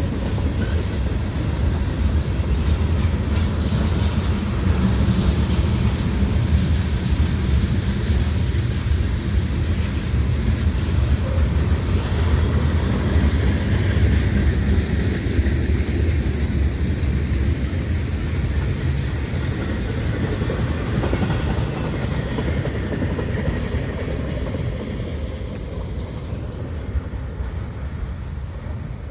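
Freight train cars rolling past: a steady rumble of steel wheels on the rails, easing off slightly near the end.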